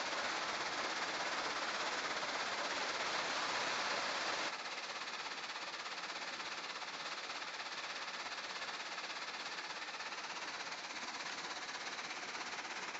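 Steady hiss and rattle of a wash plant's rinsing screen, with water spray bars washing crushed construction and demolition waste as it is shaken across the screen. About four and a half seconds in, the noise drops a step to a quieter, similar steady hiss.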